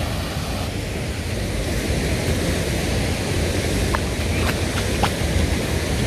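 Steady rush of flowing river water and a distant waterfall, mixed with wind rumbling on the microphone.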